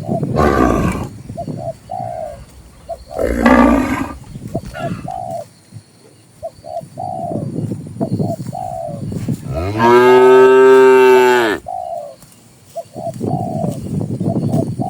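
Cattle mooing: two shorter calls in the first four seconds, then one long, loud moo of about two seconds about ten seconds in. Doves coo repeatedly in the background.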